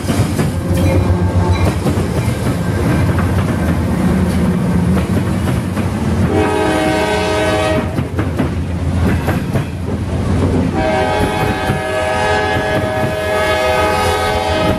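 CSX freight train's diesel locomotives passing close by, engines rumbling and wheels clattering over the rail crossing diamond, with freight cars following. A locomotive horn sounds twice: a short blast about six seconds in and a longer one from about eleven seconds on.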